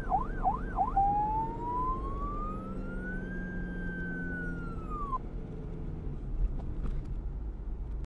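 Police siren sound effect played in reverse: a quick up-and-down yelp, about three sweeps a second, switches about a second in to one long wail that rises slowly, holds high and cuts off suddenly about five seconds in. After it only a low hum remains, with a couple of faint clicks.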